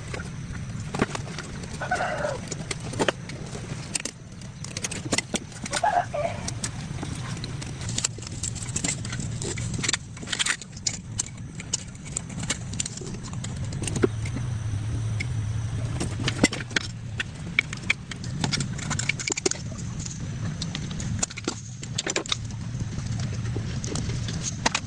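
Irregular metallic clicks, taps and knocks of hand tools working on car parts, over a low steady hum.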